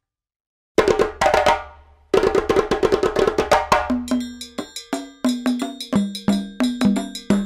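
Background music with a busy percussive beat of quick, sharp hits and pitched notes, starting about a second in after a moment of silence.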